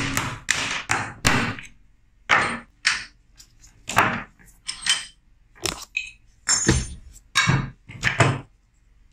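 About a dozen sharp metal knocks and clunks, irregularly spaced, as the rusted action of a Martini-Henry rifle is taken apart on the bench, with a punch worked inside the receiver and parts knocked loose.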